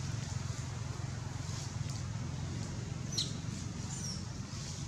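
A few short, high animal squeaks, one sharply falling in pitch about three seconds in, over a steady low rumble.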